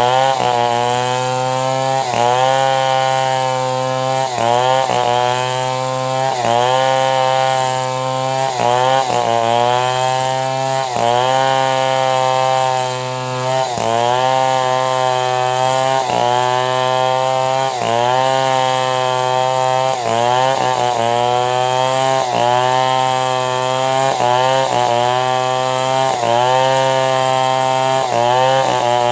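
Two-stroke chainsaw running at full throttle while ripping a log lengthwise into boards, its engine note dipping under load and picking back up about every two seconds.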